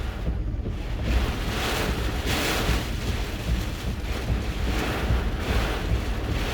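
Hurricane eyewall winds gusting against a vehicle, a constant low rumble with hissing surges every second or two, heard from inside the vehicle.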